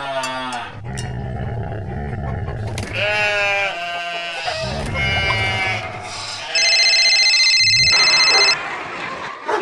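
Farm animals bleating several times with wavering calls, then a loud, steady, high electronic tone lasting about two seconds, starting a little over halfway through.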